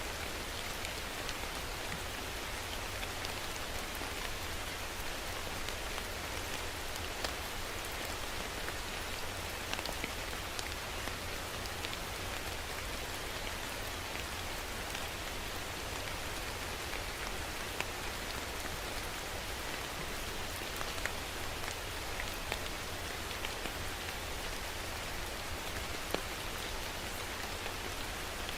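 Steady rain falling, with scattered individual drops ticking sharply on a surface.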